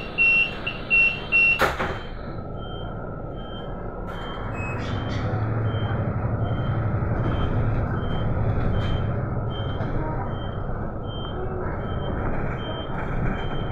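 Inside a city bus: a loud warning beep repeats several times and stops with a sharp clunk about two seconds in. The engine then builds up as the bus pulls away, and a faint short beep keeps repeating about twice a second.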